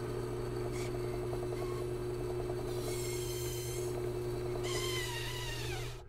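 A drilling-machine sound effect for the toy loader's auger drill: a steady low engine-like hum with a fast rattle, and a high whine that falls in pitch near the end.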